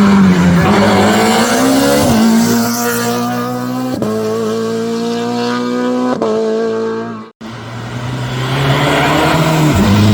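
Race car engine at full throttle up a hillclimb, changing up through the gears with quick shifts about every two seconds. About seven seconds in the sound drops out briefly, then an engine comes back, rising to another gear change near the end.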